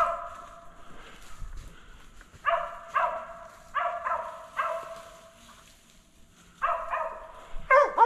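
Mountain cur barking at a tree in short runs of barks, with a quiet spell of about a second and a half in the middle. This is the treeing bark that tells the hunters a squirrel is treed.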